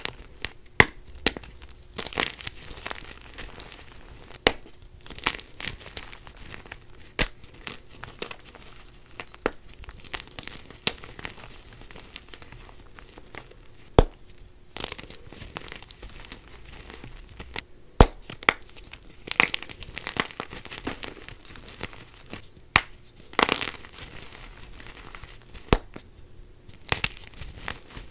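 Blocks of dyed gym chalk being crumbled and crushed by hand: a continuous dry, powdery crunching with irregular sharp cracks as pieces break off, a few of them much louder than the rest.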